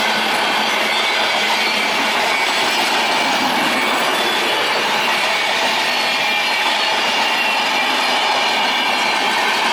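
A steady, loud running noise with no breaks, carrying faint high steady tones.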